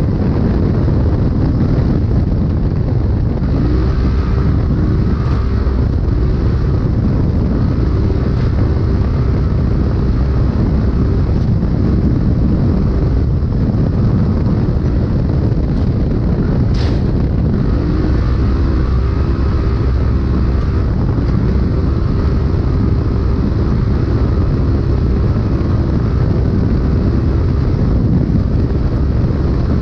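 Polaris UTV racing under hard load, recorded from inside the car over rough desert terrain. The engine and drivetrain rumble steadily, and the engine's pitch rises and falls repeatedly as the throttle is worked. A brief sharp crack or squeak cuts through about 17 seconds in.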